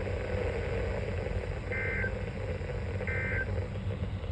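Emergency Alert System end-of-message data bursts on NOAA Weather Radio: short, buzzy digital chirps repeating a little over a second apart, two in full and a third starting right at the end. They play over a steady radio hiss and hum and mark the close of the severe thunderstorm warning message.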